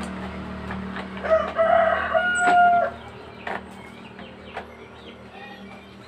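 A rooster crows once, starting about a second in: a call of roughly two seconds that ends on a held note. A few light clicks follow as the plastic throttle-grip housing on a motorcycle handlebar is pressed and fitted together.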